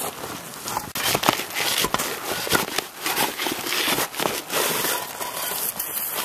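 Old asphalt shingles being torn off a roof: a dense run of crackling, scraping and crunching, many small clicks and knocks, as the shingles are pried up and loose pieces are stepped on and shifted.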